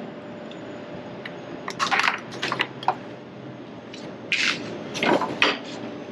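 Assorted items being rummaged through and handled, giving short clattering and rustling knocks in two clusters, about two seconds in and again around four to five seconds in. A faint steady hum runs underneath.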